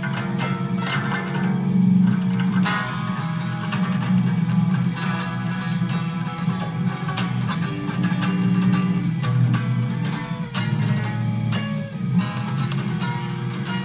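Guitar music, with plucked and strummed strings over a strong low part.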